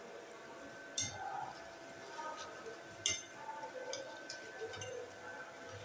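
A metal slotted skimmer clinking against a frying pan as cabbage pakoras are lifted out of the hot oil. Two sharper clinks, about a second in and about three seconds in, are followed by lighter taps, over faint frying of the oil.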